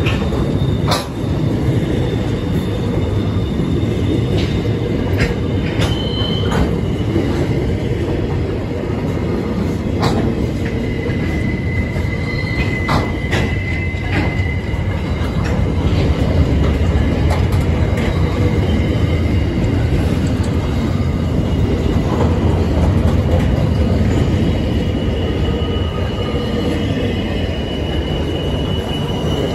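Freight train wagons rolling past at close range: a steady rumble of steel wheels on rail with scattered sharp clicks. A high wheel squeal rings out about eleven seconds in for a few seconds, and another starts near the end.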